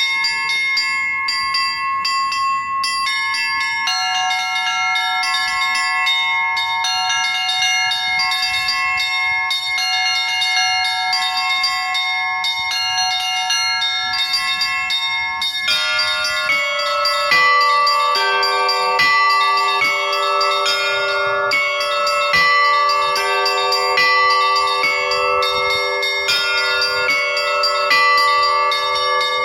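Russian Orthodox church bells rung by a single bell ringer: a quick, busy pattern on the small high bells, with a lower bell joining about four seconds in. About halfway through, deeper bells come in one after another and the ringing grows fuller.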